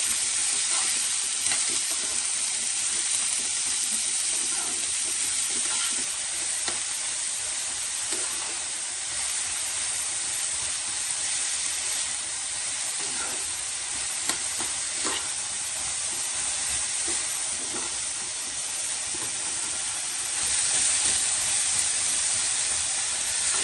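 Diced onions and green capsicum sizzling in oil in a small pan, stirred with a metal spoon that clicks and scrapes against the pan now and then. The sizzle grows louder near the end.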